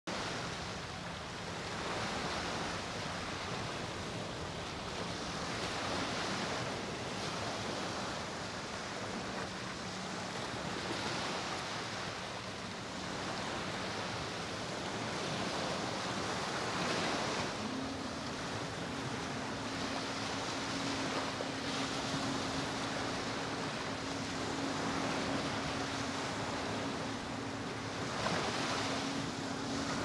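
Ocean surf: waves breaking and washing up on a beach, swelling and easing every few seconds.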